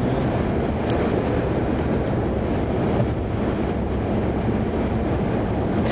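Steady road and wind rumble inside a car moving at freeway speed through a dust storm's high winds.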